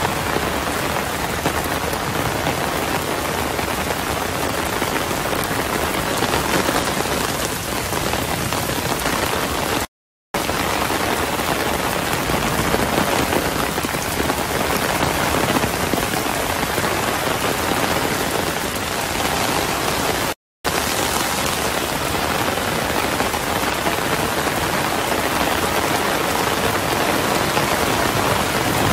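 Heavy rain pouring down on water and foliage, a steady unbroken hiss. The sound cuts out briefly twice, about a third and two-thirds of the way through.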